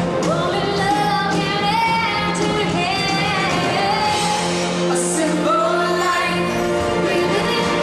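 A live band with drums, guitars and keyboards plays a song while singers, women's voices among them, sing into microphones.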